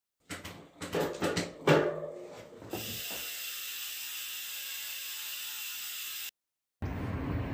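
A quick run of mechanical clicks and rattles, like a ratchet, over about two and a half seconds. It is followed by a steady hiss that cuts off suddenly.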